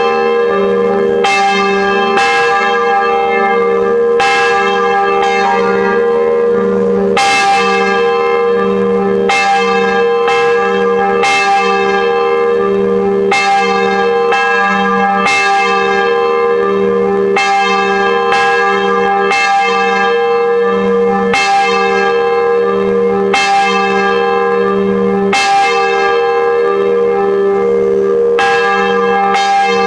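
Church bells ringing a peal, struck about once a second, each stroke ringing on over a steady hum from the bells.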